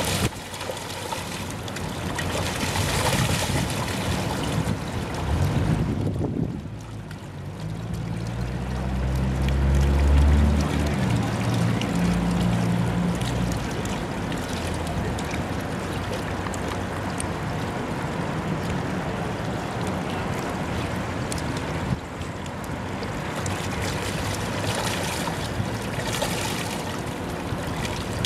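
Shallow creek water running and splashing as chum salmon thrash their way upstream in the shallows. From about seven seconds in, a low engine drone rises and fades away over several seconds.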